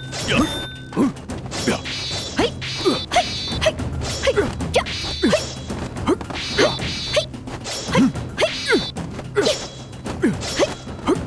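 Martial-arts fight sound effects: a quick run of whooshing swings and sharp hits, with blades clashing and ringing, over a low, steady music score.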